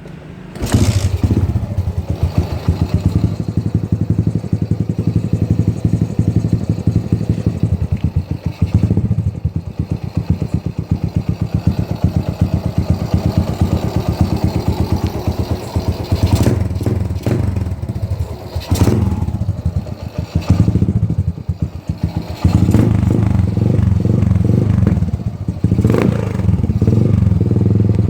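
Suzuki Shogun Pro 125 motorcycle engine breathing through an HGM aftermarket exhaust. It bursts into running about a second in, then runs with a rapid, even exhaust beat and a few short throttle blips, and is louder over the last several seconds.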